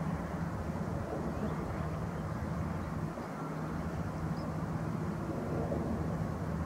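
Steady low background rumble of distant engines, with a constant low hum and no distinct events.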